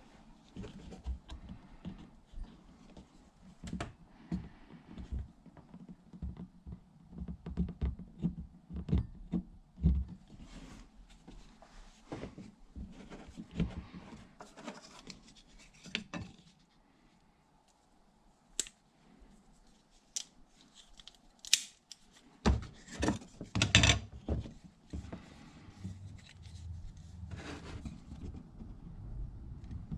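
Irregular close clicks and taps of metal hand-tool work on belt hardware: a multitool and Chicago screws being handled while a buckle is fitted back onto a leather belt. There is a quiet stretch about halfway, then a cluster of louder knocks near the end.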